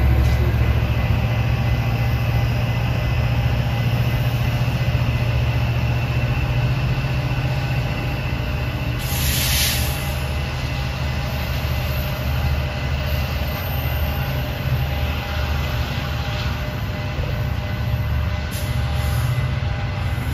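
EMD F59PHI diesel locomotive, with its 12-cylinder EMD 710 engine, running under power as it shoves a Coaster commuter train away. It gives a steady low engine drone that slowly fades, with a short high hiss about nine seconds in.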